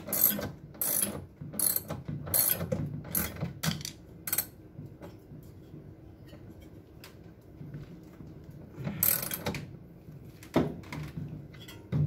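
Ratchet socket wrench clicking in quick strokes, about seven in the first four seconds, as the washing machine motor's mounting bolt is tightened to hold the drive belt taut. A few more rattling strokes come near the end.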